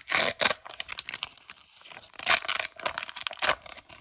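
Foil wrapper of a Pokémon booster pack being torn open and crinkled, in two loud stretches of ripping and crackling about two seconds apart.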